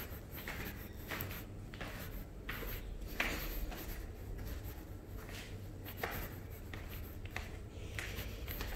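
Footsteps scuffing and scraping on gritty concrete stairs, an uneven run of short steps in a small echoing stairwell, with a low rumble of handling noise underneath.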